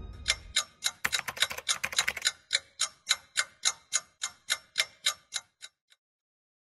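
Clock ticking sound effect: a steady run of sharp ticks, about four a second, fading and stopping near the end.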